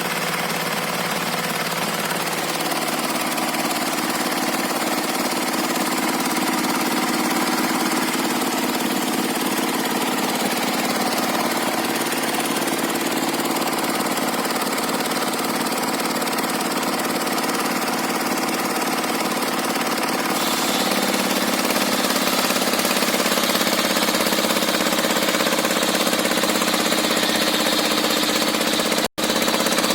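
Engine-driven circular sawmill running steadily while its blade cuts a log, the machine labouring in hard, fibrous wood with a blade that has not been sharpened. The sound changes slightly about two-thirds of the way through and drops out for an instant near the end.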